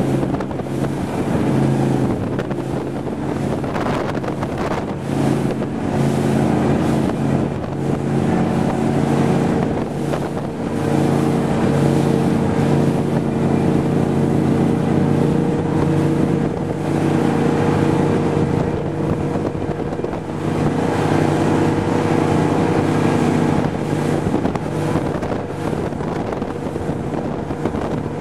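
Powerboat's 460 cubic-inch Ford big-block V8 running hard at a steady speed, with wind buffeting the microphone and water rushing past the hull.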